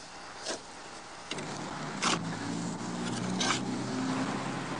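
Shovel digging into lawn soil: three short scraping strokes, spaced about a second and a half apart. A steady low hum joins about a second in.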